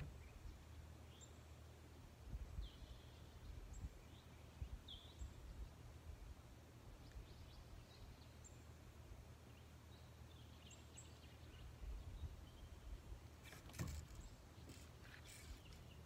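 Near silence: faint, scattered short bird chirps over a low steady rumble, with a few sharp clicks about three-quarters of the way through.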